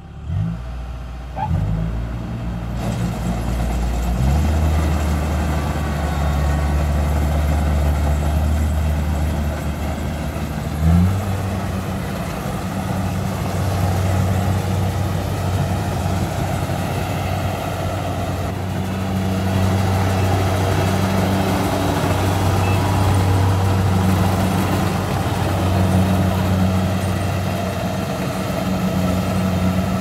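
Kubota crawler rice combine harvester's diesel engine running steadily under harvesting load. Its pitch steps up about four seconds in and rises again with a brief surge about eleven seconds in, then holds steady.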